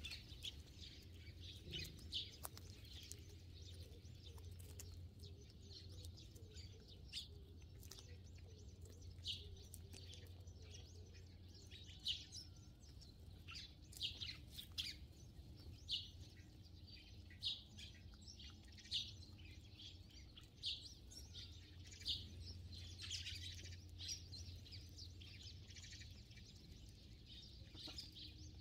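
Sparrows chirping: short, high cheeps every second or two, bunching into a quicker flurry a little over three-quarters of the way through, over a faint steady low hum.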